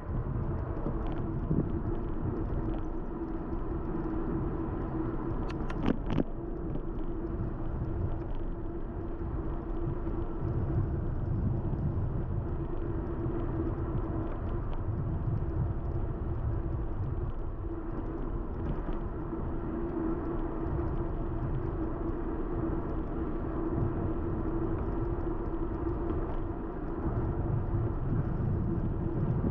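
Steady low rumble of wind and road noise on the microphone of a camera riding along on a moving bicycle, with a constant hum running through it, from a microphone the uploader says had problems. A single sharp click about six seconds in.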